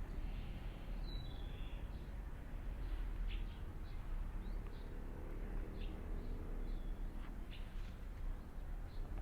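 Small birds chirping in short, high, scattered calls over a steady low rumble.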